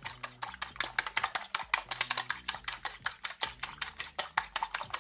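Eggs being beaten by hand in a white ceramic bowl: the utensil strikes the bowl in a fast, even run of clicks, about eight a second.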